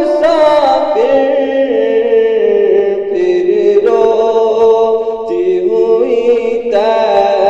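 Voices singing an Urdu naat, drawing out long held notes that slide from pitch to pitch.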